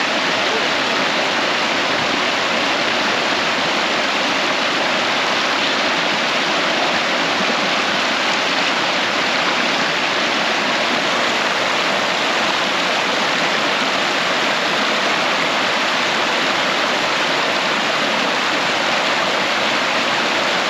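Spring-fed creek water rushing steadily, a loud, even roar with no breaks.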